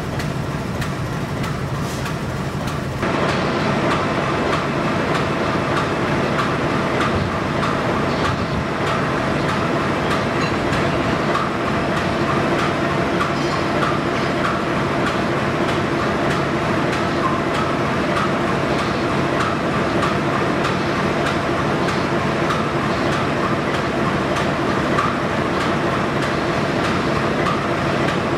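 GE U18C (CC 201) diesel-electric locomotive's diesel engine idling: a steady, even hum with a few fixed tones. It gets louder about three seconds in and then holds steady.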